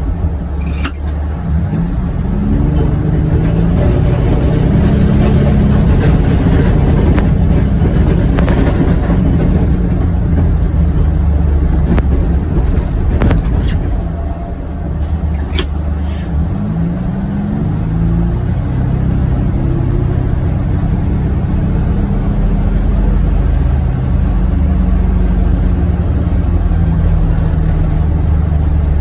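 2021 John Deere Gator XUV835M utility vehicle's engine running under load while plowing snow, with the revs rising and settling a few times.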